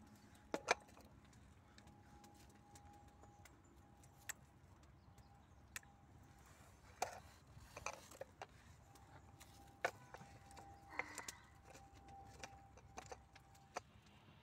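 Quiet scattered light clicks and metallic clinks, about a dozen, of small metal objects being handled; the sharpest are two close together about half a second in.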